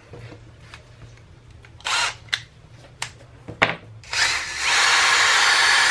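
A few short handling clicks, then about four seconds in a Bosch GSR 10.8 V-EC cordless drill/driver's brushless motor starts and runs with a steady, even whir.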